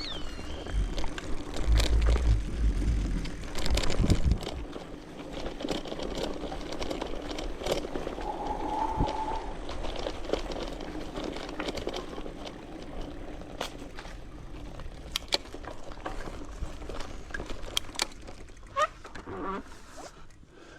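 Bicycle being ridden on a dirt trail: tyre noise with scattered clicks and rattles from the bike, and a heavy low rumble on the microphone around two and four seconds in.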